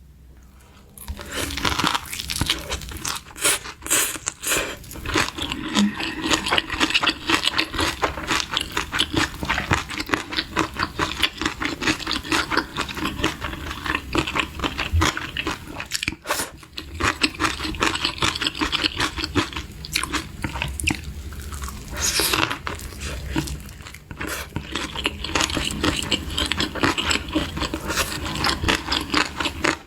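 Close-miked eating: a person crunching, biting and chewing food in quick, dense mouth sounds, starting about a second in.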